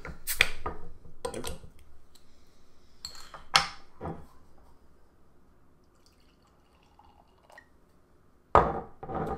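Horchata lager being poured into a glass: a faint steady hiss of liquid, set among sharp clinks and knocks of glass being handled, with two loud knocks near the end.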